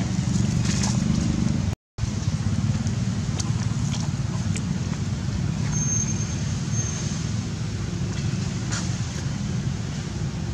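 Steady low outdoor rumble, like distant road traffic or wind, cut by a brief dropout to silence about two seconds in. A thin high tone sounds for a second or so near the middle.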